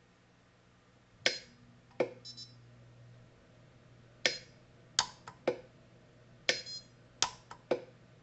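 Orion pulse arc welder firing spot welds on a fountain pen nib at a 7 Ws setting: about ten sharp snaps at irregular intervals, several followed by a brief high ringing tone.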